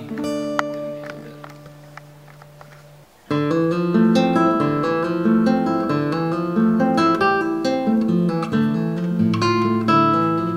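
Background music on acoustic guitar: a held chord fading away for about three seconds, then a louder, rhythmic plucked and strummed pattern starts and keeps going.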